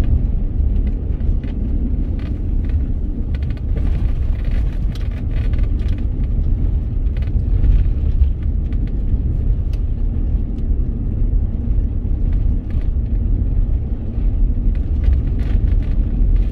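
Vehicle driving on a gravel road: a steady low rumble of engine and tyres, with scattered ticks and rattles throughout.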